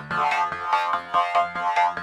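Electronic background music: synthesizer notes in a quick, steady rhythm.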